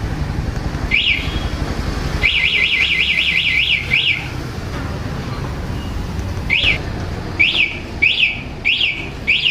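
Motorcycle anti-theft alarm (HJG) chirping: one chirp, then a fast run of about eight chirps, then single chirps spaced about half a second to a second apart. A low rumble sits underneath and drops away as the fast run starts.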